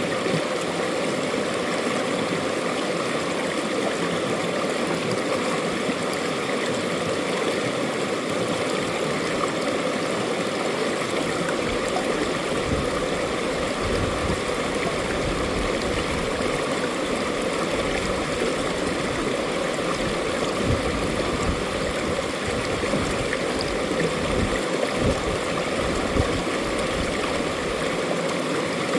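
Mountain valley stream flowing, a steady rush of water, with low rumbles coming and going in the second half.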